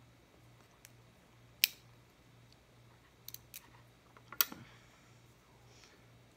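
Sharp metallic clicks of lock picking tools working an old Yale wafer padlock. There is one loud click a little under two seconds in, then a quick run of clicks between about three and four and a half seconds.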